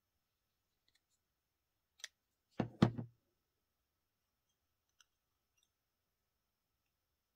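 A small handheld Dexter tool squeezed on a paperclip and a metal bottle-cap flower: one light click about two seconds in, then two sharp clicks close together, the second the loudest.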